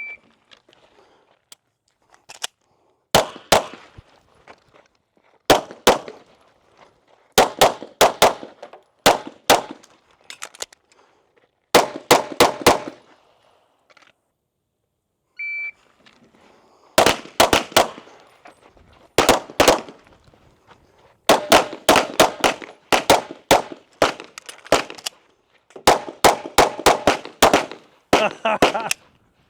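Two timed strings of pistol fire: a shot timer beeps once, then rapid handgun shots follow in quick pairs and clusters for about ten seconds; the timer beeps again about halfway through and a second, denser string of shots runs to the end.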